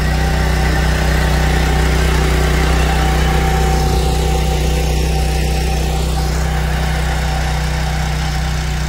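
10 HP power weeder engine running steadily under load, its rotary tines tilling wheat stubble.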